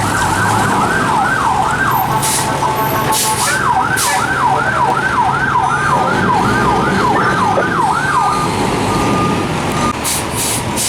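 Fire engine's electronic siren in fast yelp mode, its pitch sweeping up and down about two and a half times a second. It breaks briefly about two seconds in, picks up again, and stops near the end, with an engine rumbling underneath.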